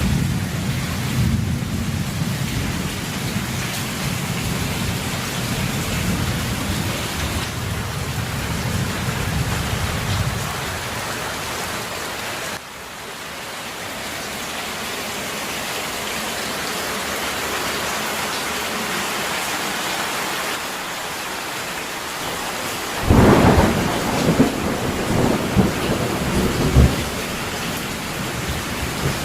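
Heavy rain falling steadily. Low rolling thunder rumbles for the first ten seconds or so, and a loud thunderclap breaks about 23 seconds in, followed by several more sharp cracks over the next few seconds.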